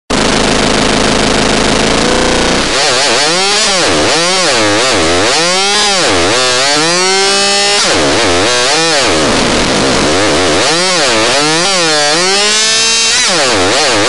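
Synthesized chainsaw sound effect: a buzzy electronic tone that holds a steady pitch for about two seconds, then swoops up and down in pitch again and again like a saw being revved.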